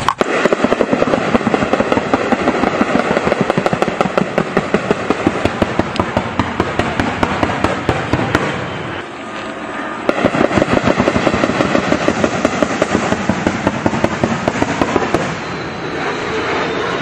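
Sustained small-arms gunfire in rapid bursts, with a short lull about nine seconds in before the firing picks up again.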